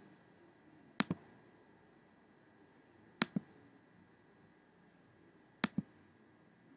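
Computer pointer button clicked three times, a couple of seconds apart. Each click is a sharp press followed quickly by a softer release click.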